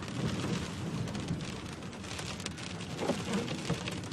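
Heavy rain falling steadily, a dense patter of drops striking a surface, with a low rumble underneath.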